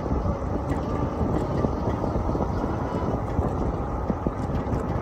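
Wind buffeting the microphone and tyre rumble from a Lectric e-bike rolling along a concrete path, a steady rushing noise with small knocks scattered through it as the tyres cross the pavement joints.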